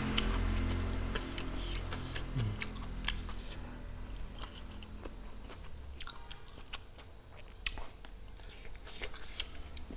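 Close-miked mouth sounds of a man eating rice and boiled fish by hand: chewing and lip-smacking as a scatter of wet clicks. There is a low hummed 'mm' that dips in pitch and fades out about two and a half seconds in.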